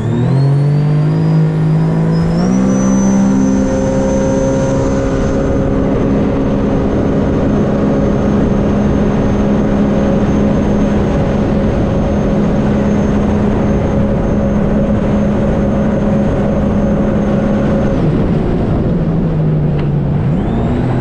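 Sea-Doo RXT-X personal watercraft's engine at full throttle on a top-speed run. Its pitch climbs over the first couple of seconds, holds steady and high, then falls about 18 seconds in as the throttle comes off.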